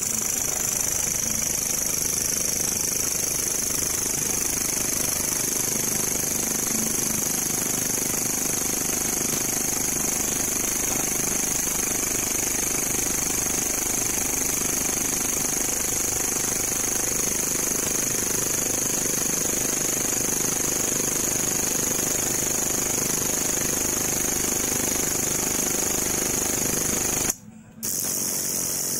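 Katydid (belalang kecek) singing: a loud, unbroken, high-pitched buzzing trill that cuts out for about half a second near the end.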